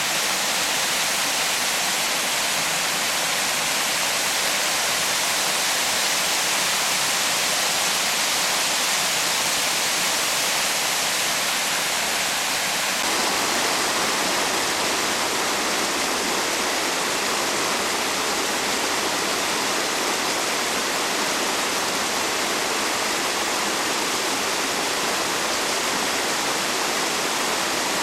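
Steady rushing of flowing water, a stream or small waterfall, as an even hiss. About halfway through it becomes fuller and deeper.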